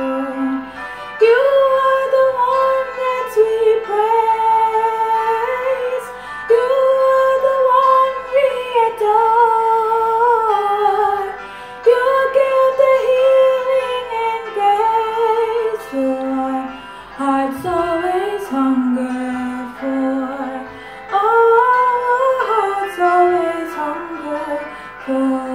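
A young woman singing a slow worship song solo, in long held notes that slide from one pitch to the next, with short breaths between phrases.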